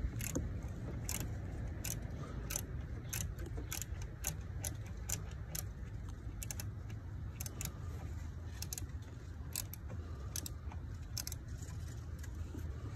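Socket ratchet clicking in irregular runs of sharp clicks as it backs out a starter mounting bolt. The clicking means the bolt is turning and coming loose. A low steady rumble runs underneath.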